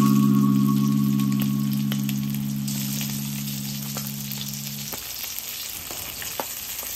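Food frying in a pan, a steady crackling sizzle, under a held background-music chord that fades away and stops about five seconds in.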